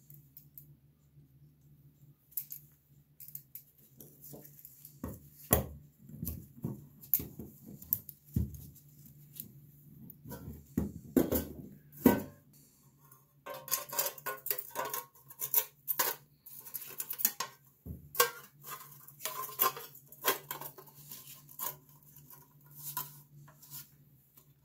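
Metal parts of a scale clinking and knocking as they are handled and worked on, in a string of irregular clicks and taps that grows busier and more ringing about halfway through. A faint steady hum runs underneath.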